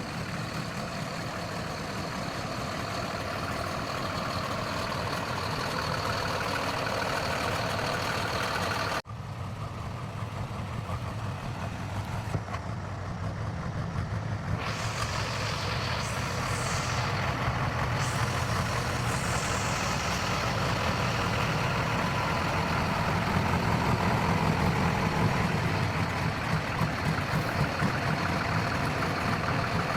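Heavy diesel engines of a backhoe loader and a truck running steadily during a recovery, with a thin high whine over them. The sound drops out for an instant about nine seconds in, and a higher hissing noise joins about fifteen seconds in.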